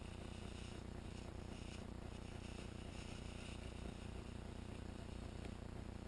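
Faint, steady low outdoor background hum, with a faint high-pitched buzz that comes and goes in the first half.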